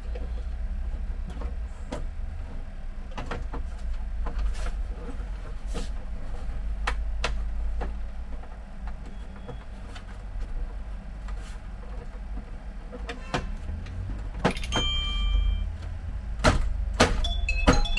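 Scattered clicks and knocks of plastic printer parts being handled and fitted, over a steady low hum. A short steady tone sounds about fourteen seconds in, and music begins near the end.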